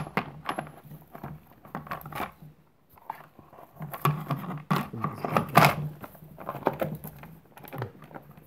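Gloved hands handling and fitting the plastic housing and cover of a chainsaw: irregular clicks, knocks and rubbing of plastic parts, the loudest knock a little past halfway.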